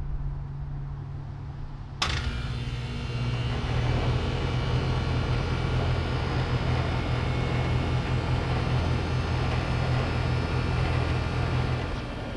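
2004 Trane XL14i 2-ton central air conditioner starting up about two seconds in with a sudden onset, then running steadily: the condenser fan's rushing air over the low hum of its Climatuff reciprocating compressor. A fainter low rumble comes before the start.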